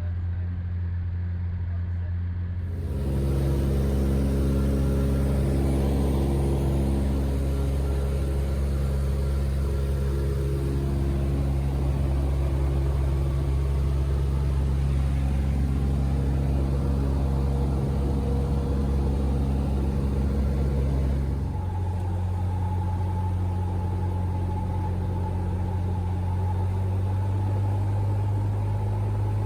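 Cessna 175's six-cylinder piston engine running steadily, a deep droning hum. The engine note shifts and grows louder about three seconds in, and changes again about twenty-one seconds in.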